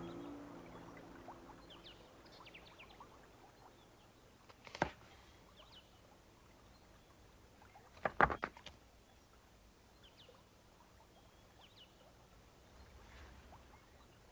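Music dies away at the start, leaving a quiet pastoral background of faint, sparse bird chirps. A short sharp click comes about five seconds in, and a louder cluster of clicks about eight seconds in.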